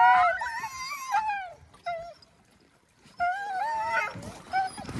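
Several Canadian Inuit Dogs howling and whining together, their voices overlapping and wavering in pitch. They break off about two seconds in and start up again about a second later.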